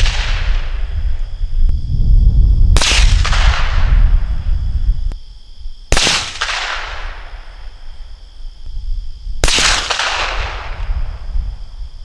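Three shots from a 6.5 Creedmoor Howa 1500 bolt-action rifle, about three seconds apart, each a sharp crack followed by an echo that fades over a second or two. A low wind rumble runs under the first two shots, and a steady high insect chirring sits underneath.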